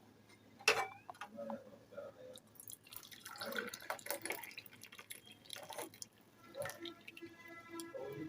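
Hot masala chai poured into cups, with dripping liquid. A sharp knock sounds a little under a second in, with scattered lighter clicks.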